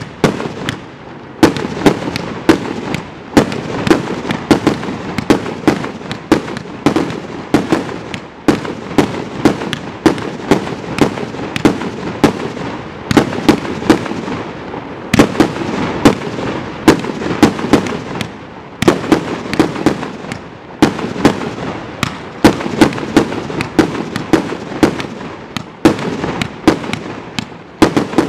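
A 200-shot compound firework cake of vertical variegated-colour report shells firing non-stop. It gives a rapid, uneven string of sharp bangs, several a second, over a constant noisy crackle.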